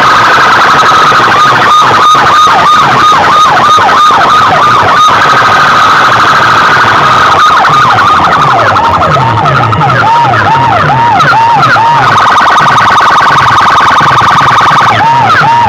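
Electronic siren effect played at full volume through a bank of horn loudspeakers: a repeating rise-and-fall wail about three times a second over a fast low chirping pattern, changing pitch partway through and briefly holding a steadier high tone near the end before the wail returns.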